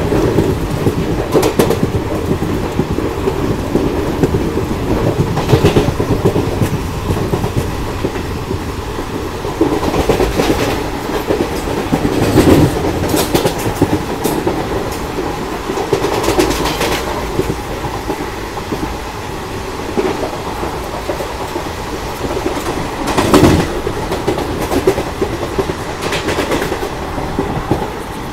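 Indian Railways passenger coach running at speed, heard close beside the coach: a steady rumble and clatter of wheels on the rails, with several brief louder bursts of noise.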